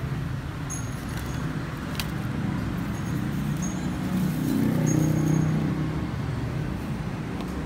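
Steady roadside traffic noise, with a passing engine swelling to a peak about two-thirds of the way through.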